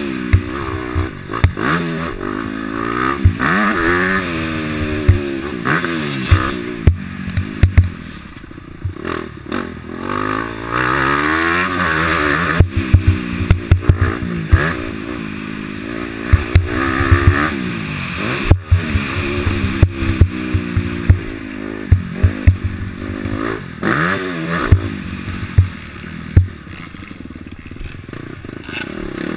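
2012 Honda CRF250's four-stroke single-cylinder engine revving up and easing off again and again as the dirt bike is ridden hard around a motocross track, with frequent sharp knocks and clatter over the bumps.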